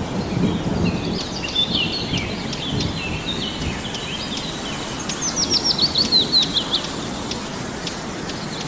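A songbird singing a varied string of chirps, finishing about five seconds in with a quick run of repeated falling notes, over a steady background hiss.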